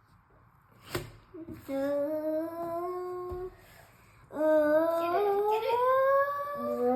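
A young girl humming a tune in long held notes, the second one sliding slowly upward, after a short click about a second in.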